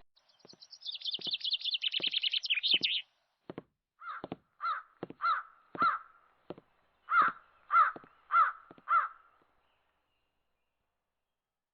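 An animal calling: a fast, high chattering for about three seconds, then a series of about eight harsh, evenly spaced calls, roughly two every second, stopping about nine seconds in.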